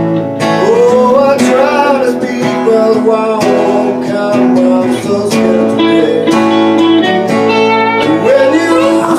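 Live guitar instrumental break in a country ballad: an electric guitar plays a lead solo of held and bending notes over strummed acoustic guitar.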